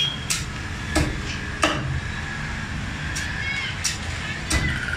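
A large knife chopping through a big rohu fish and knocking on a wooden log chopping block: about six sharp knocks in two groups of three, over steady background noise.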